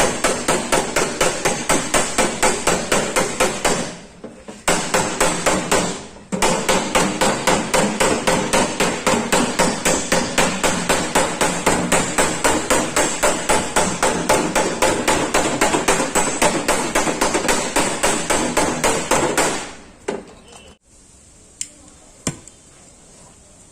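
Hammer beating out dents in a Maruti 800's sheet-steel body panel: fast, even strikes at about four a second, with two short breaks. The hammering stops near the end, leaving a couple of single knocks.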